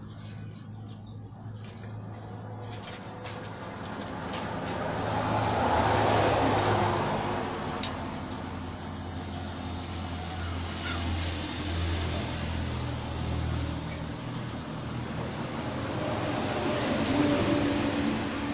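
Motor vehicle engine running with a steady low hum, louder in a swell about six seconds in and again near the end.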